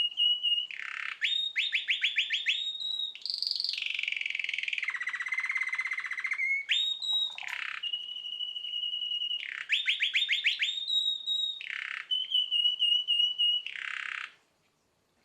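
Young domestic canary, about nine months old, singing a long song of linked trills: a steady high trill, fast runs of rising notes and a lower rolling trill, phrase after phrase. The song stops abruptly shortly before the end.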